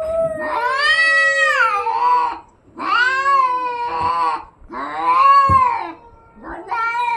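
Cats caterwauling at each other in a fight standoff: about four long, drawn-out yowls in a row, each rising and falling in pitch. A lower, slowly falling moan overlaps the first.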